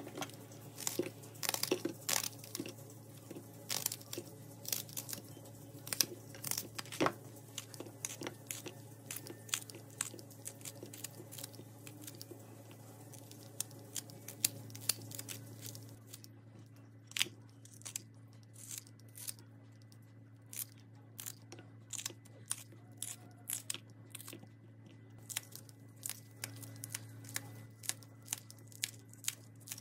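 Kitchen scissors snipping through crisp raw vegetables, bell pepper and green chili peppers, in a long run of sharp, crunchy snips a few a second, over a low steady hum.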